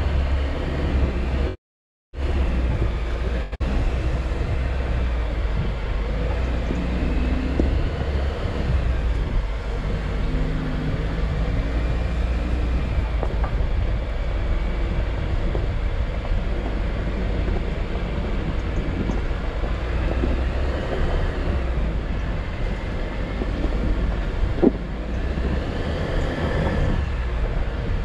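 Jeep Wrangler JL driving slowly over a rough dirt trail: a steady low rumble of engine and tyres on the dirt. The sound cuts out for about half a second near two seconds in, and a single sharp knock stands out near the end.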